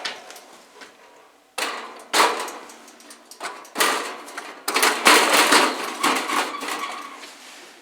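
Metal parts of a kerosene heater's housing being fitted back together: three bouts of clattering and scraping metal knocks, starting about one and a half, three and a half and five seconds in, the last the longest.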